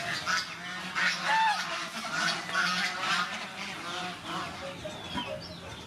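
Domestic fowl calling: a quick string of short, harsh pitched calls, most of them in the first four seconds and thinning out near the end.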